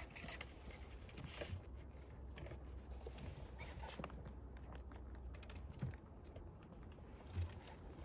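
Domestic rabbits hopping and shuffling on the wire-mesh floor of a hutch: faint scattered taps and scuffs from their feet, with a louder thump near the end. A low steady hum runs under the first half.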